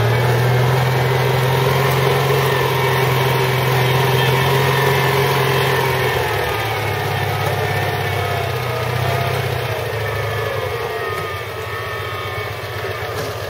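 Small engine of a lure-coursing machine running steadily, easing slightly in pitch and level about six seconds in.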